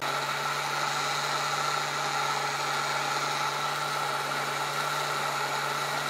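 Countertop blender motor running at one steady speed with a constant hum, blending a runny cake batter in a glass jar.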